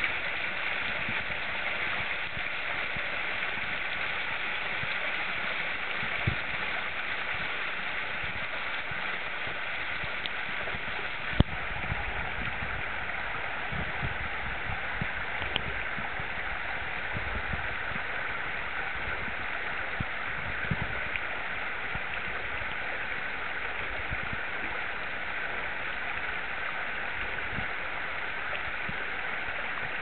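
Steady rush of a small mountain stream cascading over rock. A few short knocks stand out, the sharpest about eleven seconds in.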